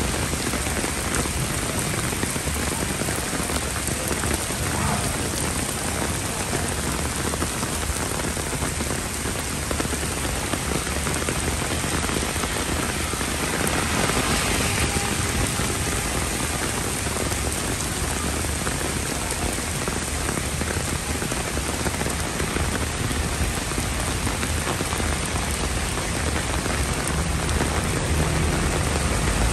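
Heavy rain pouring onto paving stones and a wet road, a dense steady hiss. About halfway through a louder swish rises and fades as a car passes through the standing water.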